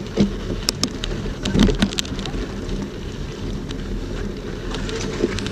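Wind noise on an action camera's microphone and a bike rolling over a rough dirt trail, with frequent sharp clicks and rattles as it jolts over bumps.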